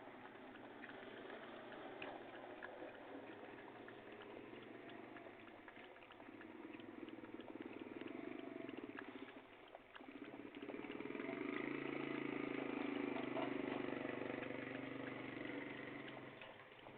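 A dog lapping water: a quick run of small wet laps and splashes that grows louder in two stretches, with a short break about ten seconds in.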